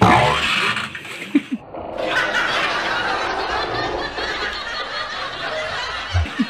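Several people laughing and snickering, with a dull low bump at the start and another near the end.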